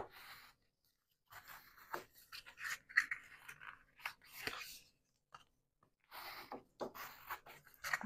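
Cardstock being folded along score lines and burnished flat with a bone folder: a sharp click, then a run of short paper rustles and rubbing scrapes.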